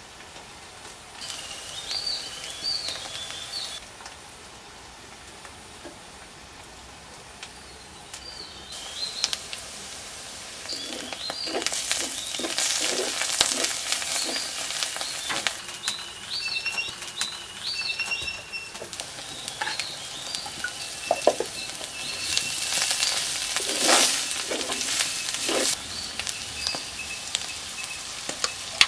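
Onions and chopped ingredients frying in hot oil in a pot, a steady sizzle that swells about a third of the way in, with the scrape of a spoon stirring. Birds chirp throughout.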